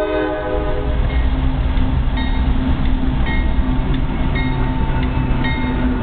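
Coal train's diesel locomotives passing close at a grade crossing. The horn's chord cuts off just under a second in, leaving the engines' low rumble and wheels on the rails. A bell rings about once a second.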